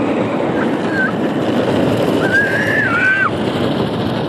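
Automatic car wash spraying water over the car, heard from inside the cabin as a loud, steady rushing. A high voice, a child's, gives two short sounds and then a longer wavering call that drops at its end.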